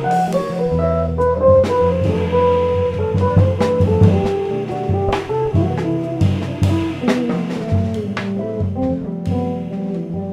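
Jazz trio of electric guitar, electric bass and drum kit playing. A Fender Telecaster plays a line of quick single notes over a moving bass line, with frequent cymbal and drum hits.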